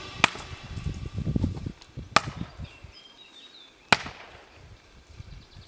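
Sharp hammer blows, evenly spaced about two seconds apart, each ringing briefly.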